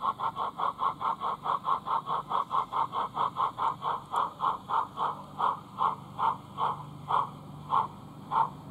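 Steam chuffing from the sound unit of an O gauge Dapol Terrier tank locomotive model, about four chuffs a second at first and slowing steadily to about one and a half a second before stopping near the end as the train draws to a halt. A low steady hum runs underneath.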